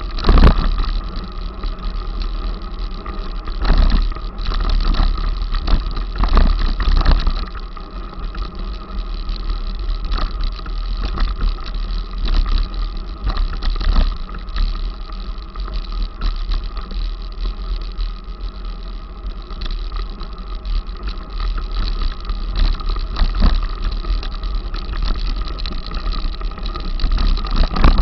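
Mountain bike ridden over a rough, rutted dirt track, heard from a camera on the bike or rider: constant wind rumble on the microphone with frequent knocks and rattles as the wheels hit bumps.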